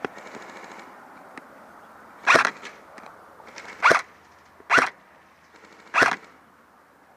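Airsoft guns firing four short full-auto bursts, each a fraction of a second long, spread over about four seconds.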